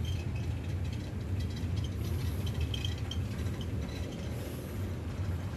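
Steady low hum of a cruise ship's interior, with faint scattered clicks and clinks over it.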